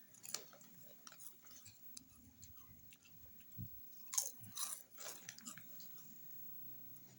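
Close-up crunching and chewing of nacho chips, a series of sharp crackles, the loudest cluster about four seconds in.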